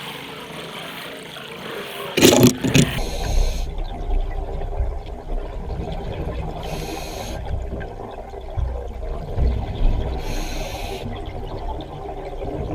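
Underwater sound of a scuba diver breathing on a regulator: a loud splashing burst about two seconds in, then a low bubbling rumble, with a short hiss of inhalation about every three and a half seconds.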